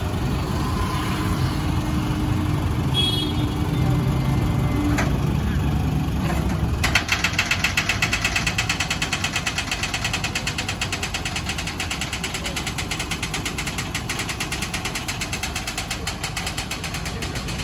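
Flatbed tow truck running while its hydraulic bed tilts down. Its engine rumbles steadily, and about seven seconds in a fast, even pulsing rattle starts and keeps going.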